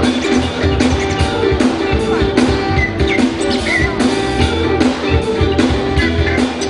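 Live band playing: guitar over bass guitar, drum kit and keyboard, with a steady beat.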